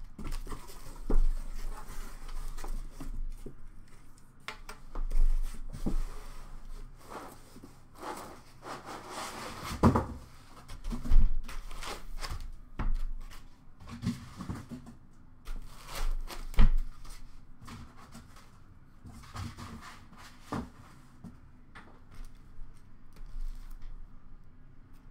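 Cardboard shipping box being handled and unpacked: cardboard and foam packing rubbing and scraping, with irregular knocks and thumps, the loudest around ten and seventeen seconds in.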